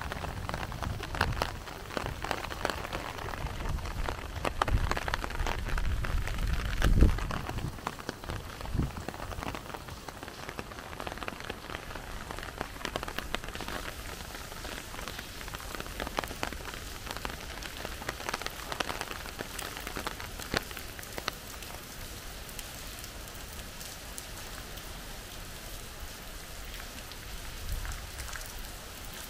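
Steady rain falling, with many scattered drops tapping close by. A low rumble underlies the first several seconds and peaks in a loud thump about seven seconds in, after which the rain goes on more evenly and a little quieter.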